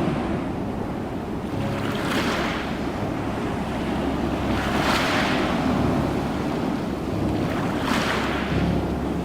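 Ocean waves breaking and washing in: three surges of hiss about three seconds apart, over a steady low rumble of surf.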